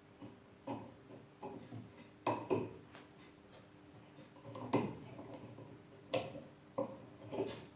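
Irregular knocks and clicks, about seven of them, over a faint steady hum.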